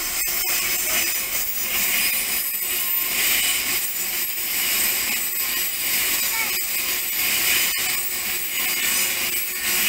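Electric commuter train running along the platform, a steady loud rush of wheels on rail that swells and eases, with a few sharp clicks.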